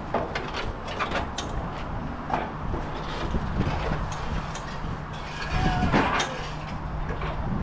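Metal clanking and scraping from tractor body parts being pulled loose and handled: a run of uneven knocks and rattles over a steady low hum.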